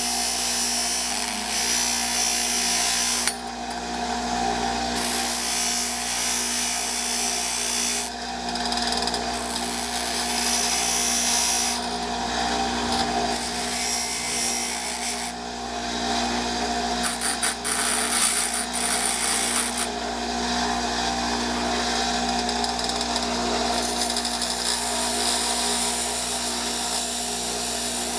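Electric grinder running steadily with a steady motor hum while its wheel grinds the metal strip from a windshield wiper blade into a lock pick. The high grinding hiss drops away for a second or more several times, then comes back.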